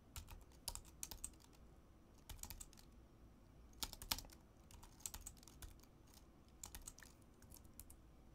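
Faint typing on a computer keyboard: irregular keystrokes in small groups of a few keys, with short pauses between.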